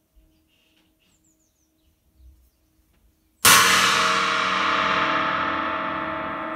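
A 1970s Wuhan China-type cymbal, 21½ inches, struck once about halfway through: a sudden loud crash that spreads into a long, slowly fading wash with several steady ringing tones underneath. Before the strike only a faint low ring is heard.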